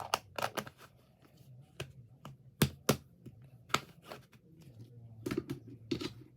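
Homemade slime being squeezed and poked by hand, giving a string of sharp, irregular clicks and pops.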